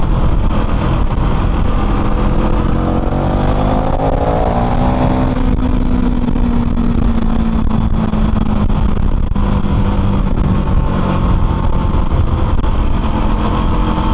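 KTM Duke 390's single-cylinder engine running under way, over a steady low rumble. About three seconds in it revs up for a couple of seconds, then holds a steadier note.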